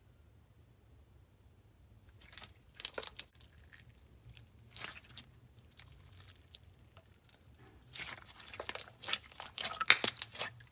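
Slime being squished and pulled by hand, giving sticky crackles and little pops in a few short spells that grow denser near the end.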